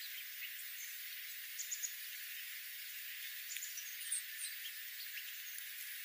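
Small songbirds feeding on the ground give short, high chirps and chip notes over a steady hiss. There is a quick run of three about a second and a half in, and the loudest chirp comes about four seconds in.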